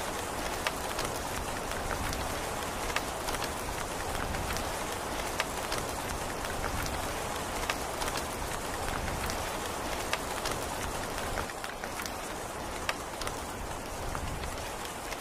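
Steady rain falling, with scattered individual drops ticking sharply against a hard surface.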